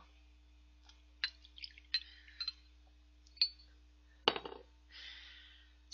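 Glass clinking as a green glass soju bottle's neck taps a small soju shot glass during a pour: several light clinks with a short ring. Near the end comes one louder sharp sound, then a soft breath-like hiss.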